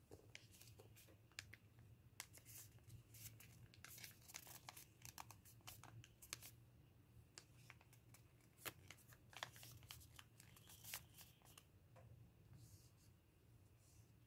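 Faint crinkling and rustling of lined notebook paper being folded and creased by hand: many small, sharp crackles, irregularly spaced, over a low steady hum.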